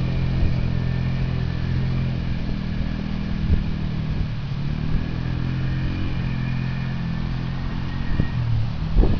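ATV engine running as the four-wheeler drives across a field, a steady hum whose pitch eases off around the middle and changes again near the end.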